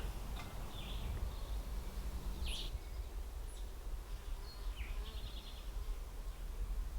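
Honey bee scouts buzzing faintly around a swarm trap, over a low outdoor rumble, with a few short bird chirps scattered through.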